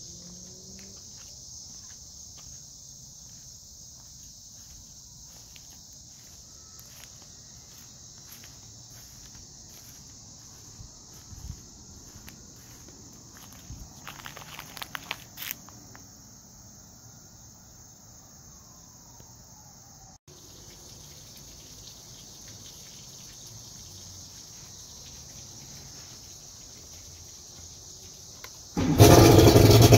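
Insects chirping steadily in the background, with a few clicks and knocks around the middle. About a second before the end, the 1991 Mercury Black Max 150 hp six-cylinder two-stroke outboard is started with the key and runs loudly.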